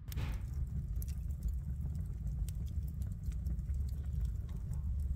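Wood fire burning in a fireplace: a steady low rumble of flames with frequent small crackles and pops from the logs.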